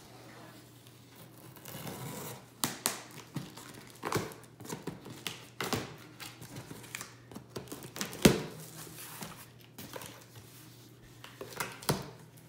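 Packing tape on a large cardboard shipping box being slit open with a blade, then the cardboard flaps pulled open: tearing, rustling and scattered knocks, the loudest knock about eight seconds in.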